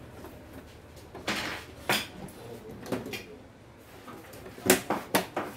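Hard objects being handled, giving a few scattered clicks and knocks, then a quick run of four sharper knocks near the end, the first of them the loudest.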